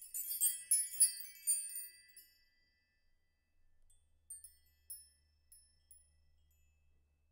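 Sparkle chime sound effect: a cluster of bright, high tinkling tones that dies away over about two seconds, followed by a few sparse single twinkles.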